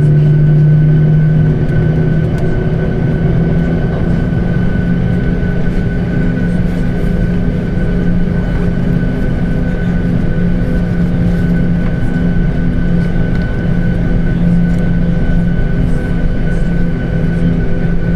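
Steady drone of a jet airliner heard from inside the cabin: engines idling and cabin air running, with a low hum that steps slightly higher in pitch about a second and a half in.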